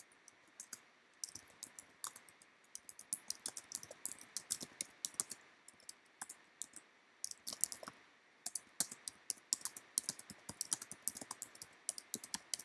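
Typing on a computer keyboard: quick runs of key clicks, with a pause of about a second a little past halfway.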